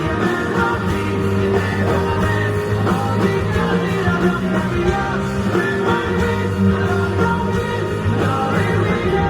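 Live band playing a rock ballad with a male lead vocal, the full band amplified through a PA system.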